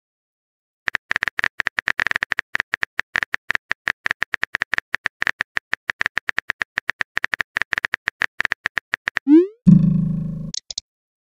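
Phone keyboard typing sound effect: a rapid run of short clicks, about six a second, one for each letter typed. It is followed near the end by a quick rising swoop and a short buzzy tone with a couple of high blips, the chat app's message-sent sound.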